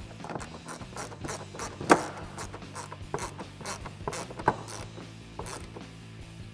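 Hand ratchet wrench with an 8 mm deep socket clicking in short, irregular strokes as it tightens a nut on a bumper stud. One click about two seconds in is louder than the rest.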